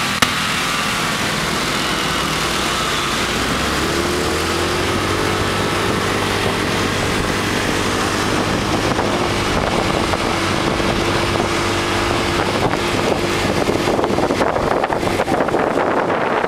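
Motor scooter engine running as it pulls away from a stop and speeds up, its pitch rising about four seconds in and then holding steady. Wind buffeting on the microphone grows over the last few seconds as the speed builds.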